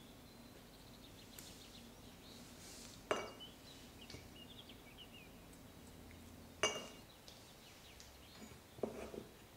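Peeled almonds clicking as they are dropped into a glazed dish: two sharp clinks a few seconds apart, then a short run of knocks near the end. A faint steady hum sits underneath.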